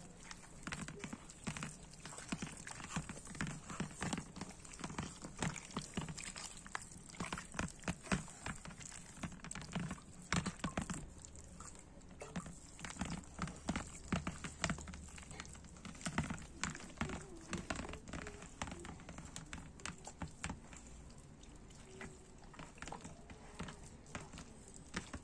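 Hands kneading wet acorn-flour dough in a steel bowl: an irregular run of wet squelches and slaps, thinning out near the end, with water trickled into the dough from a small steel bowl now and then.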